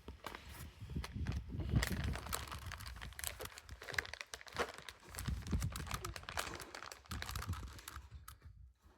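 Plastic Rubik's cube being twisted quickly by hand, its layers clicking and rattling irregularly as it is worked toward solved.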